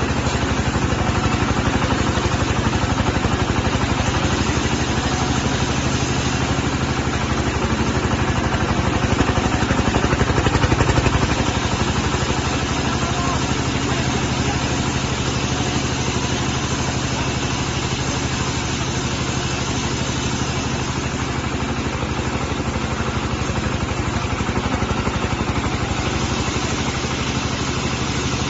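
Diesel engine of a mobile vertical band sawmill running steadily, growing a little louder about ten seconds in.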